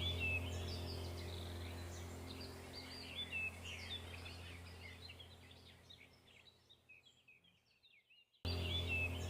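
Small birds chirping, short repeated calls over a steady low hum. It fades to silence about six seconds in, then starts again abruptly near the end.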